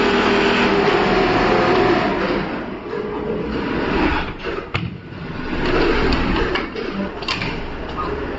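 Workshop machinery running, loud for the first two seconds and then lower, with a few sharp clicks and knocks from the plastic sewing template and pieces being handled.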